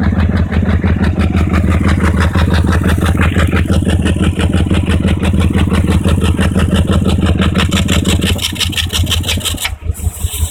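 BMW 540i V8 idling with its exhaust pulses chuffing rapidly out of the open pre-catalytic-converter O2 sensor port, a sign of heavy back pressure from clogged catalytic converters. About eight seconds in the hiss thins out and the running turns rougher and uneven.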